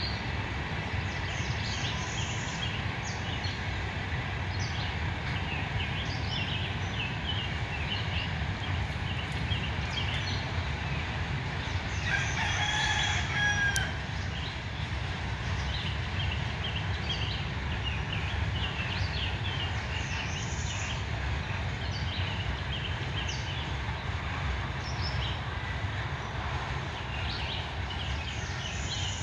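Freight train of tank cars and open-top hopper cars rolling past, a steady low rumble of wheels on rail. About halfway through, a rooster crows once, the loudest sound.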